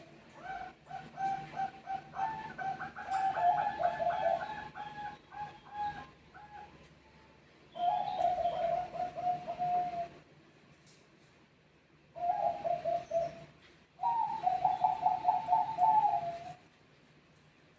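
Zebra doves (Bangkok perkutut) cooing in their rapid, trilling phrases, several birds answering one another. The calls overlap for the first six seconds or so, then come as three separate phrases with short pauses between.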